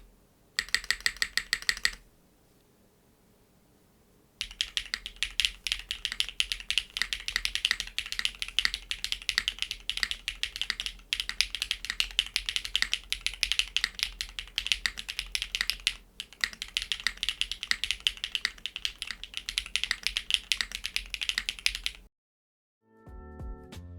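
Typing on a mechanical keyboard with Keygeek Intro linear switches: a quick, even run of keystrokes, a short pause, then a long stretch of steady typing that stops abruptly near the end. A few plucked guitar notes come in just before the end.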